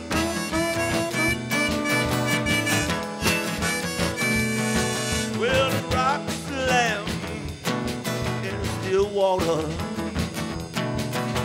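Live blues band playing an instrumental: a saxophone solo with wavering, bending notes over strummed acoustic guitar and drums.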